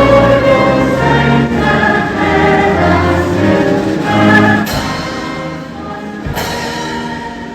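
Choir singing with orchestral accompaniment in sustained chords. About two-thirds of the way in, the singing ends and the orchestra carries on more quietly, with two sharp percussive strikes.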